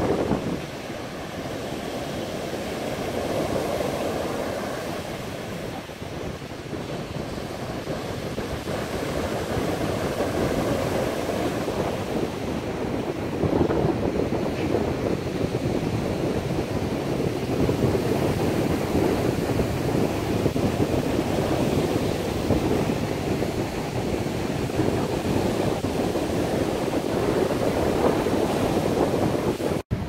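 Heavy surf breaking and washing up a sandy beach, a continuous rush that rises and falls with each set of waves, with wind buffeting the microphone.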